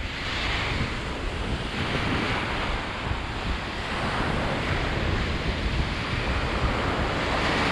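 Ocean surf washing steadily onto the beach, with wind rushing over the microphone.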